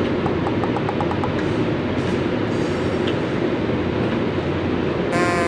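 Steady, loud mechanical rumble, like a running vehicle or train, with a short horn-like tone near the end.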